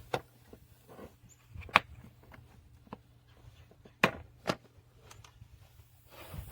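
Several sharp clicks and knocks, about five in all, the loudest about two seconds in and again about four seconds in, over a steady low hum.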